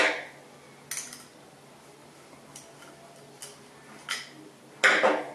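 Metal clinks and knocks from handling a chrome thermostatic mixer body and a screwdriver, the screwdriver's shaft pushed into the mixer's end. A sharp knock at the start, a few lighter clicks, and the loudest knock near the end.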